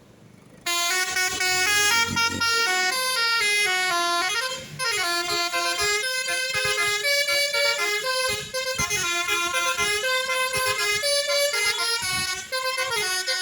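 Basuri telolet multi-tone bus horn playing a tune, the notes stepping up and down one after another. It starts suddenly about a second in and keeps playing throughout.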